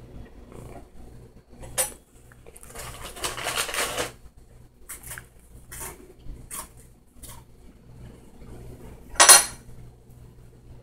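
Clinks and rattles of hard objects, like dishes or cutlery. A sharp clink comes about two seconds in, then a rattling stretch and a few lighter clicks, then a louder ringing clink near the end. A faint low pulsing hum runs underneath.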